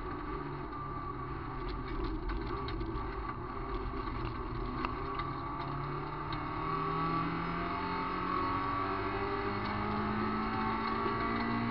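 VW Gol rally car's engine heard from inside the cabin at speed on gravel, pulling up in pitch twice in the second half and dropping sharply at the very end as it shifts gear. Gravel noise and short clicks of stones striking the car run underneath.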